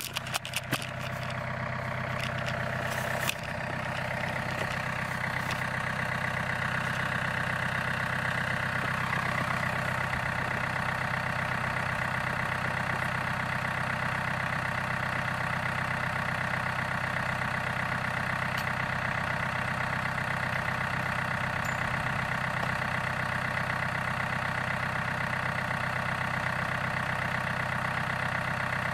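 Diesel engine of a John Deere 4600 compact tractor idling steadily. A few knocks come in the first few seconds.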